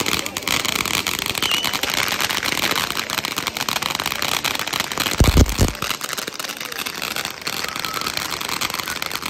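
Sparklers and ground fireworks burning with a steady hissing crackle, with one dull low thump about five seconds in.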